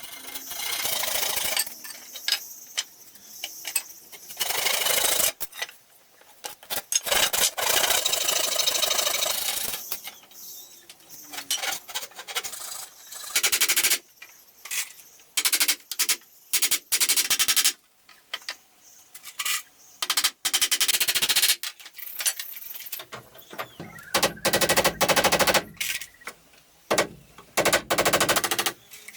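Woodworking tools on wood: bursts of rapid rasping, rattling strokes that start and stop every second or two.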